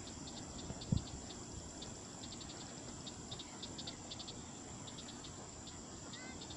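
Insects chirping: short, high clicking chirps in quick runs over a steady high hiss, with a thump about a second in.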